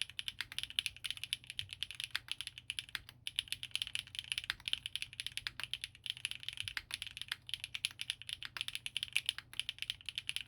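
Fast, continuous typing on a Geonworks Frog TKL mechanical keyboard with lubed Gateron RAW switches, an aluminium plate and GMK Lavender keycaps: many keystrokes a second, with a brief pause about three seconds in.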